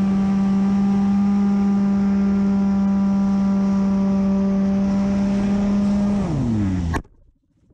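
Electric motor and propeller of an FPV flying wing, heard through the onboard camera, running at a steady pitch. About six seconds in the pitch falls as the motor spools down after a radio signal loss. The sound then cuts off abruptly with a crash into the trees.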